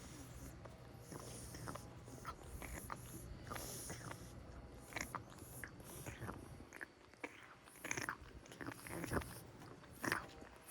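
Small irregular clicks and rustles from a cat close by, with a few sharper clicks near the end.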